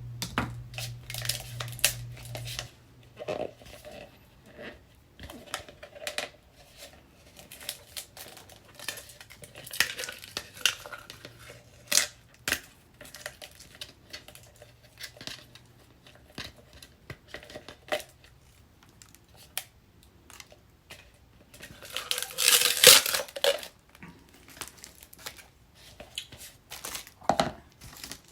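Things being handled on a work surface: scattered light clicks and knocks with rustling and crinkling, and a louder crinkling rustle lasting about two seconds near the end. A low hum stops about two and a half seconds in.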